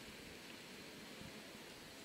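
Faint, steady background hiss of a station platform, with no distinct sound standing out.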